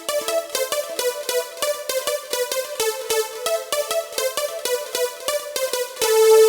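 Yamaha PSR-SX900 arranger keyboard playing an electronic synth sound: a quick, even run of short repeated notes at about five a second, then a long held note near the end.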